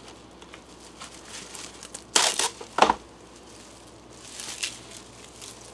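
Saran plastic cling film crinkling as it is pulled off the roll. About two seconds in there are two loud short rasps, the second ending in a thump, as the sheet is torn free. A softer rustle follows as the film is handled.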